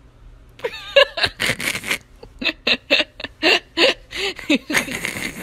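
A person laughing in a run of short bursts that turns into a quick, rhythmic string of laughs in the middle.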